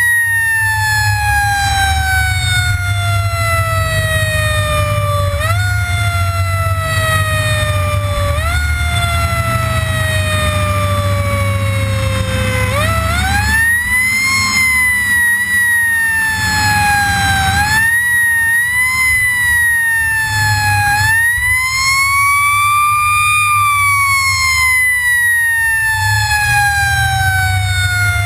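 Fire engine siren wailing over the truck's engine rumble. For the first half its pitch sinks slowly and is nudged back up twice; after that it swings up and down in long, slow sweeps.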